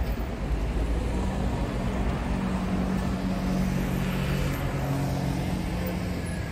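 City street traffic: car engines running with a low rumble and a steady hum. A motor scooter passes close by about four seconds in, and its noise swells and fades.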